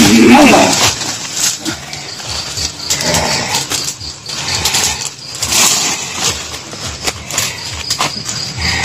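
A man's wavering, animal-like vocal cry that breaks off just under a second in, followed by scuffling and rustling in dry undergrowth with scattered knocks.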